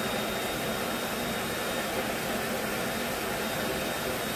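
Vacuum cleaner running steadily as its hose is worked over the floor: an even rushing hum with a faint steady high whine.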